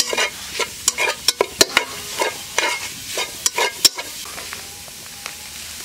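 A metal spatula scraping and clinking against a metal pot while stirring spice paste and fish paste that sizzle as they fry. The scrapes come quickly for about four seconds, then stop, leaving a faint sizzle.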